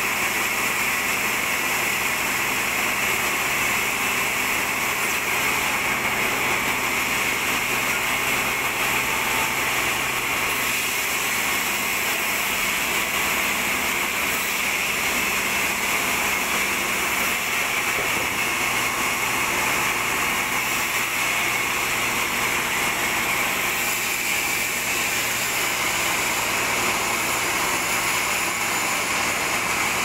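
Sawmill headsaw machinery running steadily, a constant mechanical hum with a hiss over it and no break or change.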